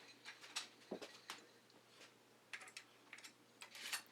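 Faint, irregular light clicks and taps of hand tools working on a bicycle hub's axle nuts while the freshly greased hub bearings are adjusted. The clicks come in loose clusters, a few of them close together near the end.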